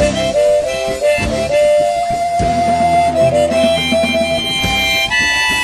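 Harmonica playing an instrumental melody of held notes over a ska punk band backing of bass and drums. The melody jumps higher about five seconds in.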